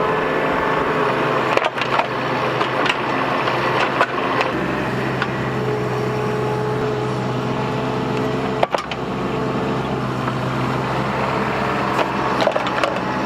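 Bobcat mini excavator's diesel engine running steadily while digging a trench, with sharp knocks from the digging now and then: a louder one about nine seconds in and several close together near the end.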